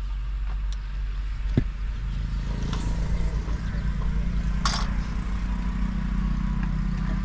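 Engine running with a steady low rumble, a rhythmic low pulsing building up about two seconds in. A sharp click comes early, and there is a brief hiss a little past the middle.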